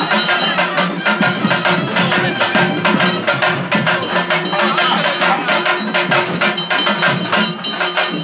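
Brass temple bells clanging rapidly and continuously, many quick strikes over a steady metallic ringing.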